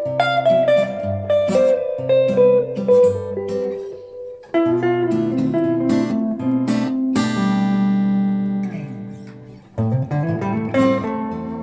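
Instrumental music led by a semi-hollow-body electric guitar playing a melody of picked single notes. The sound drops away briefly about four seconds in and again just before ten seconds, then comes back in.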